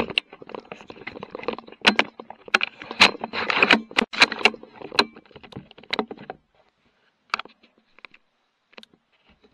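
Rattling clicks and knocks of a rifle being handled, picked up by the rifle-mounted scope's microphone. They come thick and fast for about six seconds, then thin out to a few scattered clicks.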